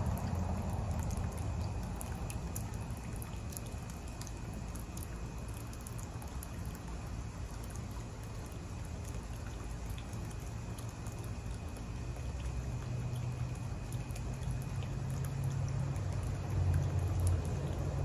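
A small bird-bath fountain splashing steadily into its basin, a light patter of droplets, over a low rumble that swells near the end.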